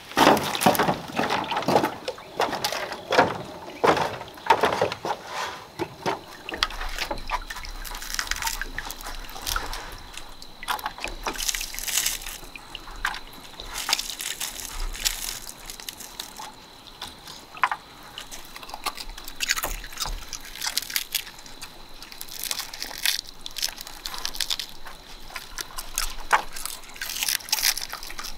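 Water sloshing and dripping, mixed with scattered irregular clicks and knocks that are busiest in the first few seconds.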